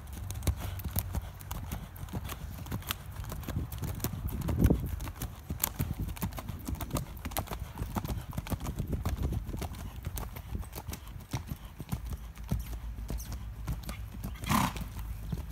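American Saddlebred's hooves striking a sand arena at the trot: a steady, quick run of hoofbeats. A brief, louder call-like sound comes near the end.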